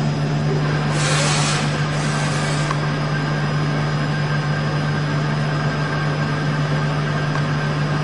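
Okuma MU-500 five-axis vertical machining center running during a grooving operation: a steady low hum with a constant high whine over a broad hiss, and a louder burst of hiss about a second in that dies away within two seconds.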